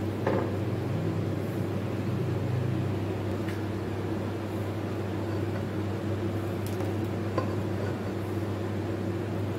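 Hand-held immersion blender motor running steadily with a low hum as it purées thick chicken haleem in a pot, with a few faint clicks.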